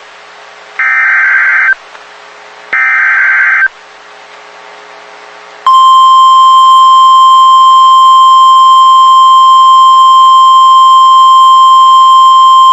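Emergency Alert System SAME header on NOAA Weather Radio: two harsh digital data bursts, each about a second long and a second apart. A few seconds later the steady 1050 Hz weather radio alarm tone begins, about six seconds in, signalling that a warning is about to be read.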